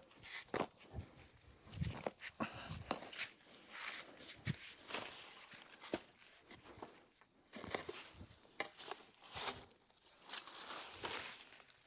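Footsteps and rustling in dry leaves and brush: irregular crunches and scrapes, with a longer rustle near the end.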